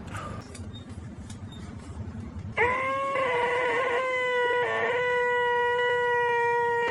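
A low rumble, then about two and a half seconds in a man abruptly lets out a loud, nasal, held "eeeeh" scream at a steady pitch, with a short wobble partway through: the "most annoying sound in the world".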